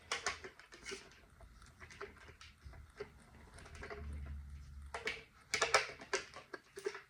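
Scattered light clicks, taps and rustles of a plastic facial steamer and its packaging being handled, with a denser run of sharper clicks about five and a half seconds in.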